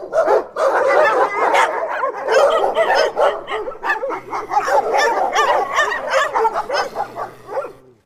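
Dog barking and yipping in quick succession, several short calls a second, fading out and stopping just before the end.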